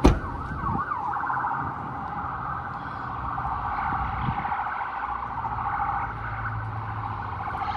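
Ambulance siren warbling rapidly up and down, with a sharp knock right at the start.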